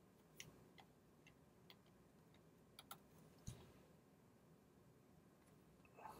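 Near silence: quiet room tone with a few faint, sharp clicks scattered through it, the strongest about three and a half seconds in.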